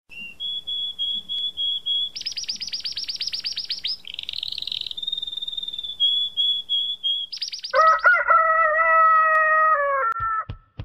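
Birds chirping: repeated high chirps and fast trills. About eight seconds in comes one long crowing call that holds its pitch and steps up and down before it stops.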